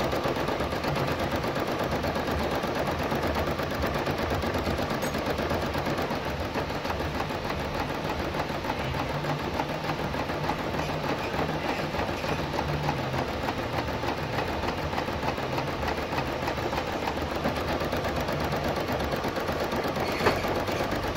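Brother 700E domestic embroidery machine running steadily, its needle stitching at a fast, even rate. A single sharp click near the end.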